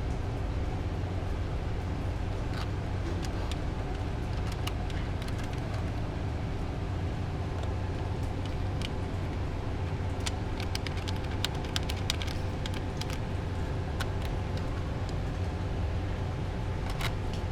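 Small plastic clicks and taps of hands working a new air filter into a scooter's plastic filter housing, struggling to seat it, thickest about ten to thirteen seconds in and again near the end. A steady low background hum runs underneath.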